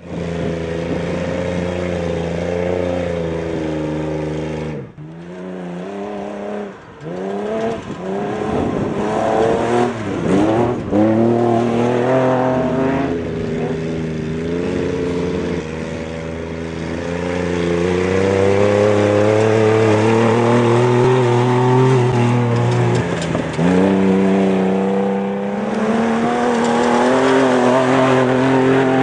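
Desert race pickup truck's engine running hard, its revs falling sharply about five seconds in, rising and falling repeatedly with throttle and shifts for several seconds, then held high and steady through much of the second half with one brief dip.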